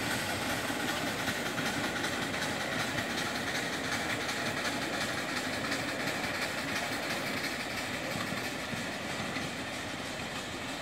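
Miniature steam railway train running along its track, its carriages rolling away and growing a little fainter near the end.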